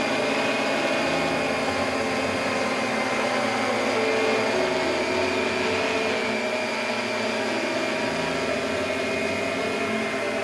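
Multirotor hexacopter hovering: its motors and propellers make a steady buzzing whine whose pitch wavers slightly as the motors adjust.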